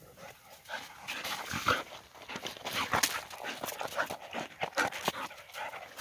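A dog playing in snow close by: a quick, irregular run of crunching and snuffling as its paws and muzzle dig into the snow, with short whimpers.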